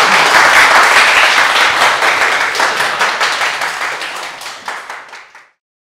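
Audience applauding, dense clapping that slowly dies down and then cuts off abruptly near the end.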